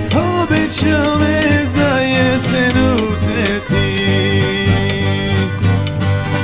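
A man singing a traditional Bosnian sevdalinka in a bending, ornamented melody, accompanied by a strummed acoustic guitar and a cello.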